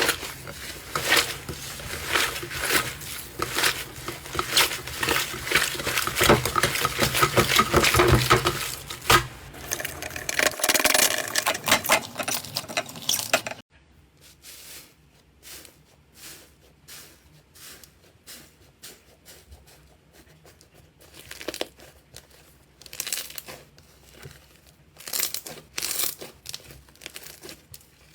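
Slime being squeezed and worked by hand, with dense, loud crackling and popping for about the first half. It drops off suddenly a little before halfway to quieter, scattered pops and squelches.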